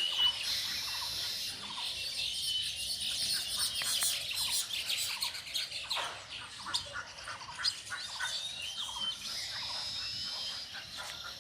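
Several birds chirping and calling, with many short chirps and little rising and falling whistles over a steady high hiss.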